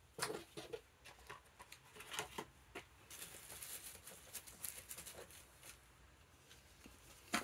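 Light clicks and knocks of small parts being handled on a workbench, with a spell of soft rustling in the middle as a hand reaches among items for a new fork seal.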